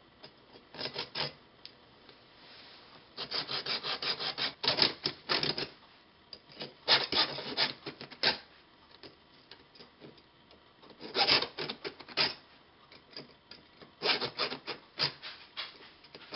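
Small hacksaw cutting through a zinc-plated metal rod by hand: several runs of quick rasping back-and-forth strokes, broken by short pauses.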